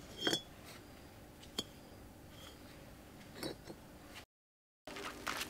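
A few separate light clinks and clicks of small hard objects being handled, the first with a brief ring. There is a moment of dead silence about four seconds in.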